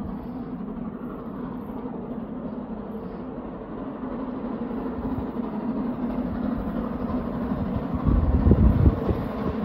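GWR Castle-class steam locomotive 7029 Clun Castle approaching under power while still out of sight, a steady rumble that slowly grows louder, with a heavier low rumble about eight seconds in.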